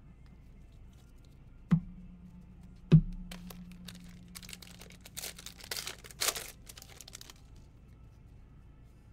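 Two sharp knocks, each with a short low ring, then the crinkling and tearing of a Donruss basketball card pack wrapper being ripped open for a few seconds.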